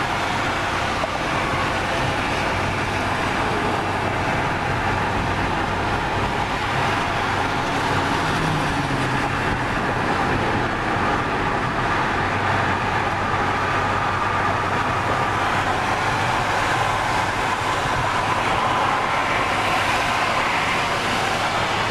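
Steady road noise inside a moving car's cabin at freeway speed: tyres and engine running evenly, with other traffic driving alongside.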